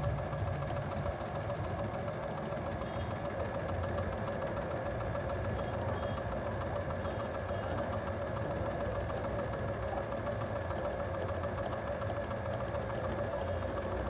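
Brother computerized sewing machine running steadily, sewing a decorative pattern stitch.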